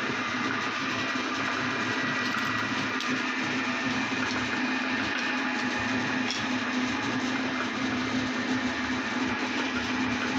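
Electric meat grinder running steadily under load with a constant hum, its auger grinding chocolate pieces and pressing them out through the plate.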